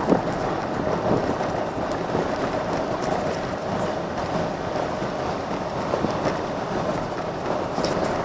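Golf cart riding over a gravel road: a steady crunching rumble of tyres on loose gravel, with the cart rattling over bumps.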